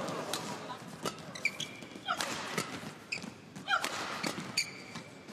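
Badminton rally: sharp rackets hitting the shuttlecock, roughly one hit every half second, with short squeaks of court shoes on the floor in between.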